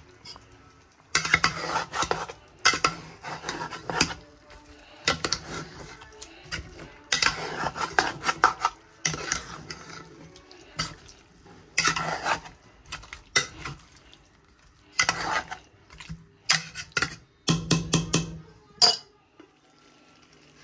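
A spoon scraping and clattering against a cooking pot as chicken is stirred and fried in the spice paste for a bhuna, in a run of uneven strokes roughly once a second.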